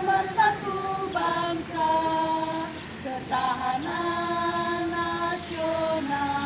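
Small choir of women singing a march song unaccompanied, moving note to note with a long held note about two-thirds of the way through.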